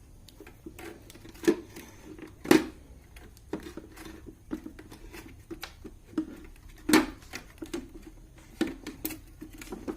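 Irregular knocks and clicks of a UPS unit's casing and battery being handled as the battery is taken out, with two louder knocks about two and a half and seven seconds in.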